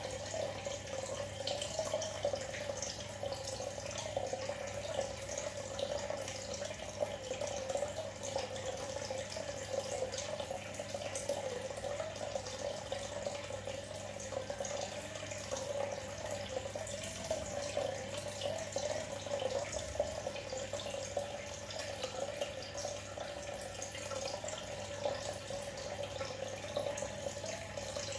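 Aquarium aeration bubbling and trickling steadily, air bubbles breaking at the water surface with fine drip-like ticks, over a steady low hum.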